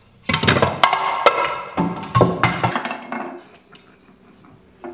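A loud clatter: a quick, irregular run of ringing knocks and rattles that dies away over about three seconds.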